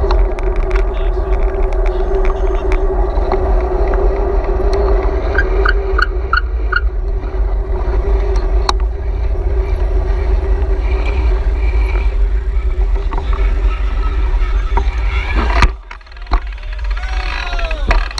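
Steady wind rumble on a bike-mounted action camera's microphone while riding, with road and traffic noise underneath. A quick run of five short high chirps comes about six seconds in, and the noise drops out briefly near the end.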